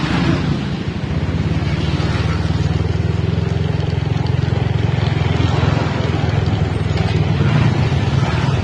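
Small motorcycle engine running steadily, close to the microphone, with a fast even pulsing.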